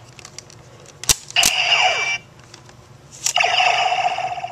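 Bandai DX Decadriver toy transformation belt: a sharp plastic click as the side handles are pushed in and the buckle turns, then two bursts of electronic sound effects from its speaker, the first with falling sweeps, the second a held tone that cuts off suddenly.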